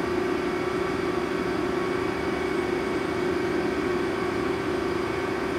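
Steady machinery hum: one constant tone over an even hiss, unchanging throughout.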